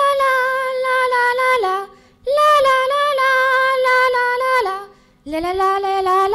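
A girl singing solo and unaccompanied into a microphone: three long held notes of about two seconds each with short breaks between, each phrase falling in pitch at its end.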